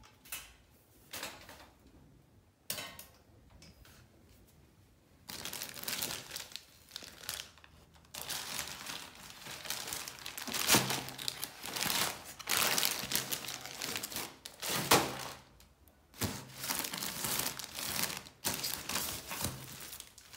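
Plastic packaging crinkling and rustling in irregular bursts as a parcel is opened and the zip-lock plastic bags of sandals inside are handled. Two brief knocks come first, before the crinkling starts about five seconds in.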